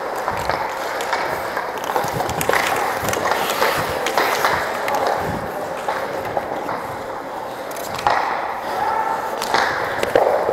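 Hockey skate blades scraping and carving on rink ice, a steady scrape with louder pushes about eight and ten seconds in, with scattered sharp clacks of sticks and puck.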